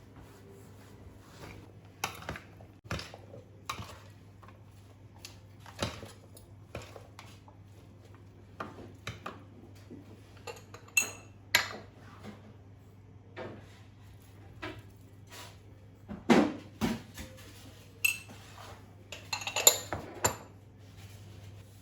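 Dishes and cutlery clinking and knocking: a scattered run of taps and clatters, some with a ringing metallic clink, busiest and loudest near the end. A steady low hum underneath.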